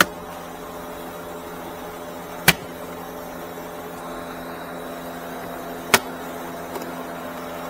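Three sharp plastic clicks, one at the start, one about two and a half seconds in and one about six seconds in, as a Nissan Rogue's lower dash trim panel is pried at with a flat trim tool. Under them runs a steady low hum.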